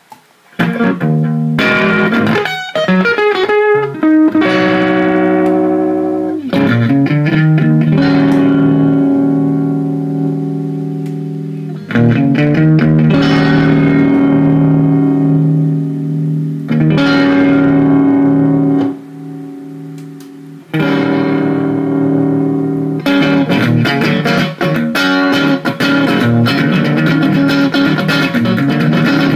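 Electric guitar played through an Egnater Rebel-20 valve amplifier head and speaker cabinet: chords struck and left to ring for several seconds at a time, then a faster run of picked notes in the last several seconds.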